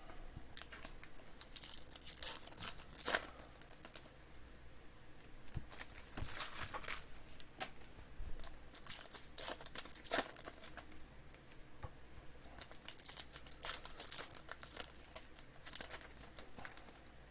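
Plastic wrapping and trading-card pack wrappers crinkling and tearing as sports card boxes and packs are opened by hand, with irregular sharp crackles, the loudest about three and ten seconds in.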